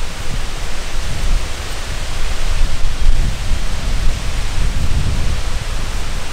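Wind buffeting the microphone outdoors: a loud, steady rushing hiss with uneven low rumbling gusts.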